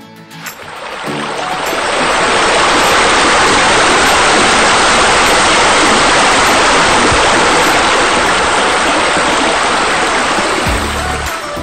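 Steady rushing water like a waterfall or spa spillover. It fades in over the first couple of seconds and eases off near the end, as music comes back in.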